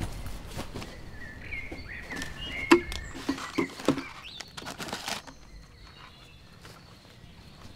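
Toys, crumpled paper and a roll of tape being handled in a wooden crate: a string of small knocks and rustles, with a few short high chirps in the first half. It goes quieter near the end.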